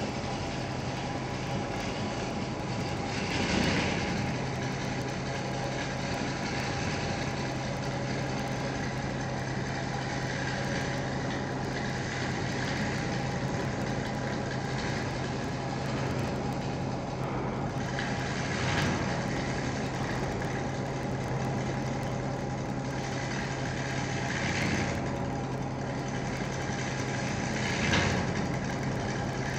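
Wood lathe running steadily with a low hum while a gouge cuts into a spinning wooden spindle. The cutting grows louder for a moment a few times, the loudest near the end.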